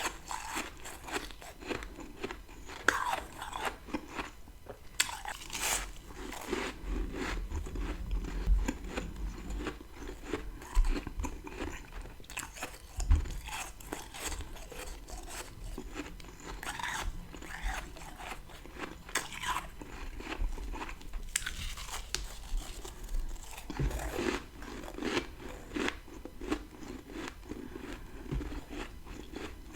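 Close-up crunching of dry freezer frost being bitten off in big mouthfuls and chewed, a dense crackle of crunches with several louder bites standing out.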